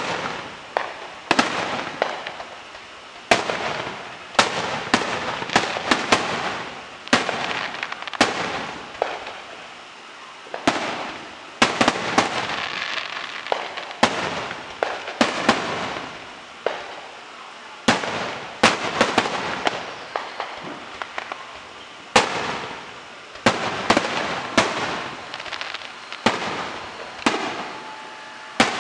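Aerial firework shells bursting in quick, irregular succession: sharp bangs, often two or three close together, each trailing off over a second or so.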